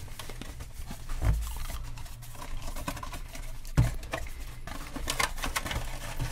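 Cardboard toy box being opened and its inner sleeve and clear plastic tray slid out: scraping, rustling and crinkling of card and plastic, with two dull thumps.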